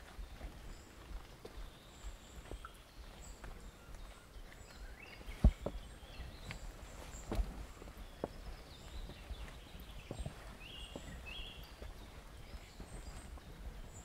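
A walker's footsteps in a forest, a run of irregular knocks; the sharpest come about five and a half seconds in and again near seven and a half. Birds chirp in short bursts behind them, most clearly near the end, over a low outdoor rumble.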